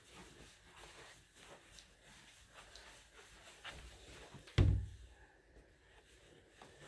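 Soft rustles and light steps of a toddler walking on carpet, then a single dull, low thump about two-thirds through.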